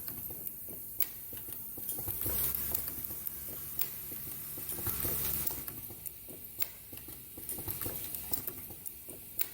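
Automatic plastic zipper slider mounting machine running, with rapid, irregular light clicking and rattling from its mechanism and the plastic sliders. A low hum joins in from about two seconds in and stops about five and a half seconds in.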